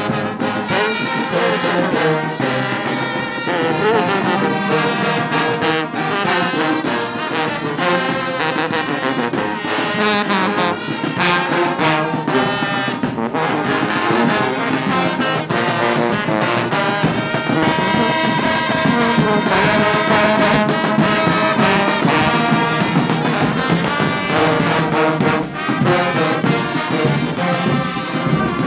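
Brass band of tubas, trumpets and other brass playing a tune together, loud and continuous.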